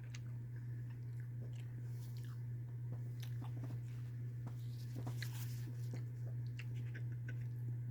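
A person chewing a mouthful of microwaved rice and chicken, with small wet mouth clicks and the odd light tap of a utensil, over a steady low electrical hum.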